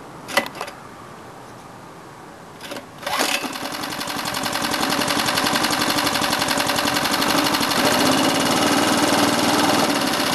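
Small petrol engine of a generator set, silent apart from a few clicks, starts about three seconds in and picks up speed, then runs at a steady speed with a fast, even beat.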